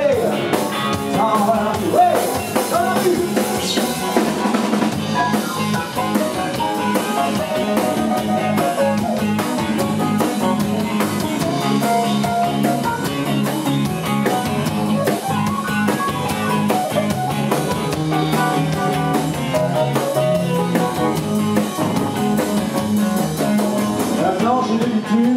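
Live rock band playing a rock-and-roll number: drum kit, electric guitar and keyboard, with the singer's voice coming in at times.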